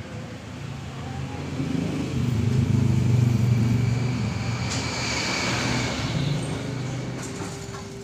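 A motor vehicle passing by. Its engine hum rises to a peak about three seconds in, then fades away.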